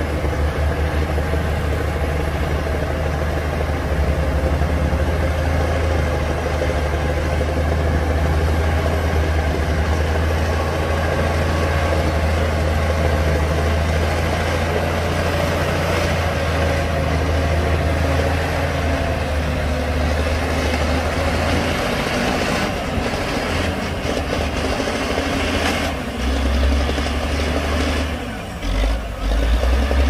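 Heavy diesel earthmoving machinery running: a steady, deep engine drone that breaks up about two-thirds of the way through, followed by uneven low rumbles near the end.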